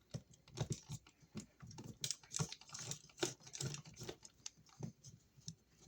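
Irregular light clicks and taps of hands working a wall receptacle and small wire-loop shims into an electrical box, several a second.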